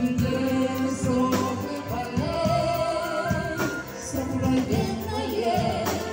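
A song playing: sung melody over a full musical accompaniment, with long held notes.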